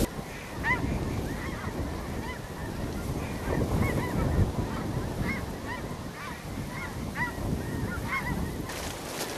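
A flock of geese honking: a run of short calls, about two a second, over low wind noise on the microphone.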